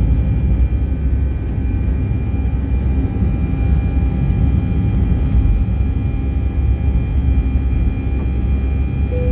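Airbus A320 jet engines running steadily, heard from inside the passenger cabin: a constant low rumble with a thin steady whine above it.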